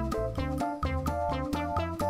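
Instrumental background music with a bass line under quickly changing melody notes.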